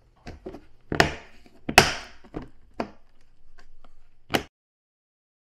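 Snap-on lid of a white plastic fermenting bucket being pressed down around the rim to seal it: a series of sharp plastic snaps and knocks, the loudest about one and two seconds in, the last about four seconds in.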